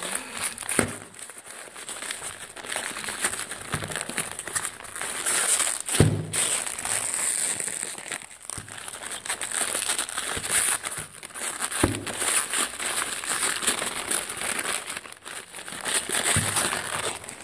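Packaging crinkling and rustling as it is handled and unwrapped, with a few sharp knocks along the way.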